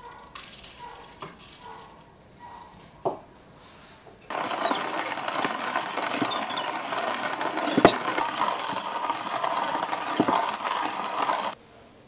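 Coffee beans rattle lightly as they are poured into a wooden hand-crank coffee mill. Then the mill is cranked, and its burrs crush the beans in a loud, dense crackle with a few sharper cracks. The grinding stops abruptly near the end.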